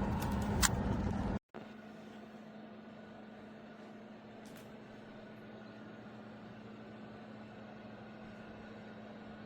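Vornado Transom window fan: loud rushing air from the running fan for about a second and a half, then an abrupt cut to a much quieter, steady fan hum with one low tone.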